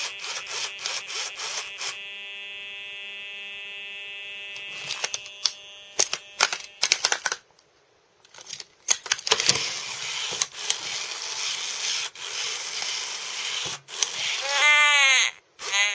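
A Furby toy left unused for years malfunctioning: a run of rapid mechanical clicking, then a steady electronic buzzing tone held for about three seconds, then a rasping grind with clicks from its motor and gears. Near the end it lets out a short, warbling, glitchy voice sound.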